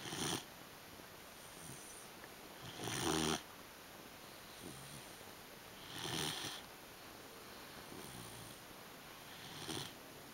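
Three-month-old English Pointer puppy snoring, with a snore about every three seconds and softer breaths between them. The loudest snore comes about three seconds in.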